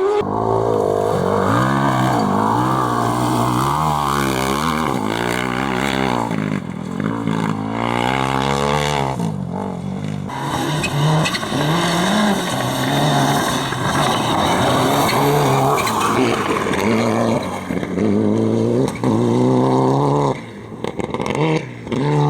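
A competition vehicle's engine revving hard and falling back again and again as it accelerates, lifts and changes gear through a slalom run, then dropping away about twenty seconds in.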